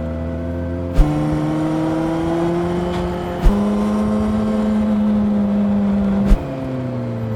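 Honda CB400 Super Four's inline-four engine running under way, in spliced segments that change pitch abruptly with a sharp click at each cut, about a second in, midway and near the end. In one segment the pitch climbs slowly under throttle; in the next it holds steady.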